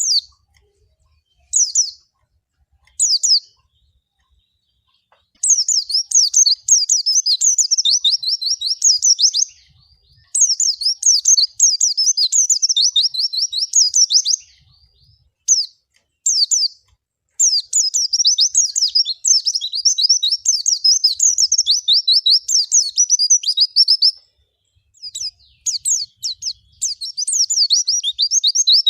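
White-eye (pleci) singing: a few short single chirps, then from about five seconds in, long runs of rapid, high-pitched twittering notes broken by brief pauses.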